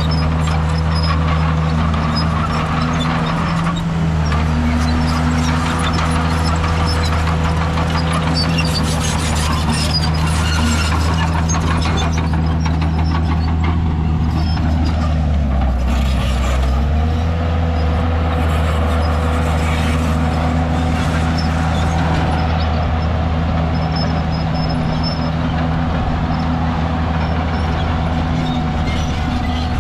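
Komatsu D51PX bulldozer's diesel engine running steadily at work, with a thin steady whine over it; the engine note sags briefly just past halfway and then picks up again.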